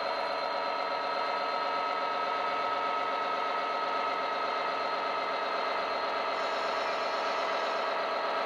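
ESU LokSound DCC sound decoder playing the Class 66's EMD two-stroke diesel engine sound through the small speaker of a Hattons OO gauge model locomotive, running steadily as the model moves along.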